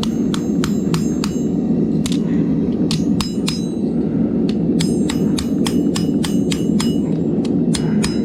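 Hand hammer striking hot 1084 high-carbon steel on an anvil, a series of ringing clangs at an uneven two to three blows a second with a short pause midway, drawing out a knife tang. Under the blows runs the steady rushing roar of a gas forge burner.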